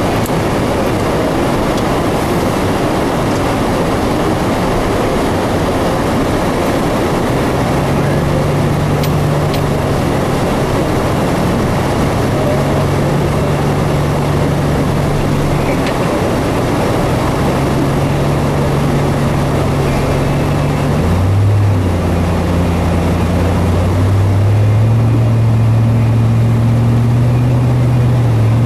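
Car interior noise while driving on a snow-covered road: a steady rush of tyre and road noise with the engine's hum, which drops in pitch a little after two-thirds through and rises again near the end.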